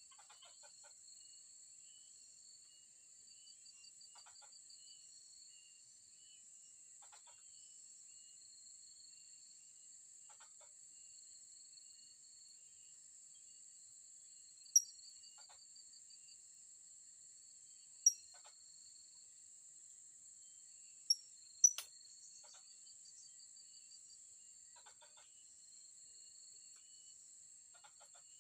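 Steady high-pitched drone of insects, with four short, shrill bird calls typical of a blue-crowned hanging parrot (serindit) from about halfway on, the last two close together.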